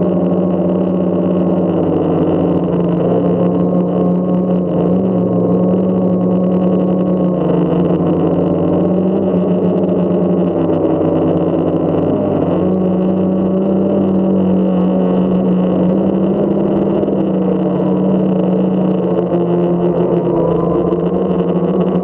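Quadcopter drone's motors and propellers running steadily, with a hum that shifts slightly in pitch as the drone hovers and turns.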